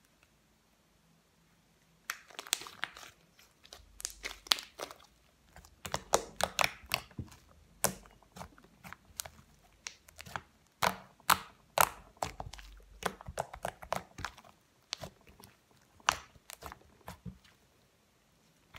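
Homemade blue slime, made with shaving cream, being kneaded and stretched by hand, giving off many irregular sticky clicks and pops. These start about two seconds in, after a near-silent moment.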